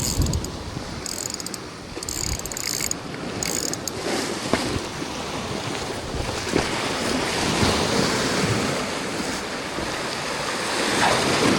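Sea waves washing against a rocky shore, a steady rushing surf, with wind buffeting the microphone.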